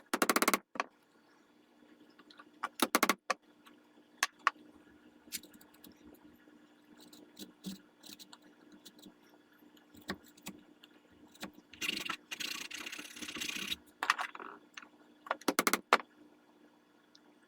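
Hand tools working the walnut buttstock to seat the steel buttplate: a few short, separate scraping strokes with light metallic clinking, the longest stroke group about two-thirds of the way in, over a faint steady hum.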